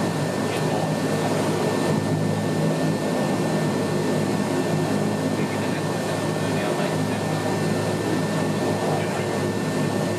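Bombardier Dash 8-100 turboprop engine and propeller idling on the ground, heard from inside the cabin beside the propeller: a steady drone with a thin high whine over it.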